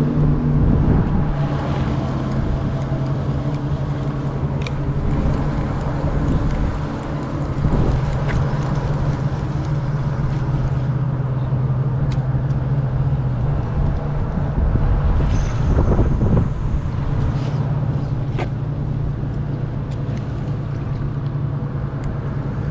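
Steady low drone of motor traffic, a constant hum over a wash of noise, with a few light ticks scattered through it.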